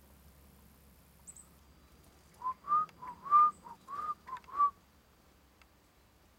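A person whistling a short phrase of about eight clear notes that alternate between a lower and a slightly higher pitch, starting about two and a half seconds in.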